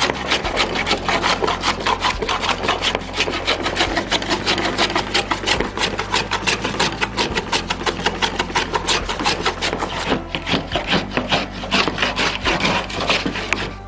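Metal bench hand plane shaving a laminated pallet-wood paddle blank in rapid repeated strokes, each stroke a short scrape of the blade lifting a shaving. The strokes thin out briefly about ten seconds in, then carry on.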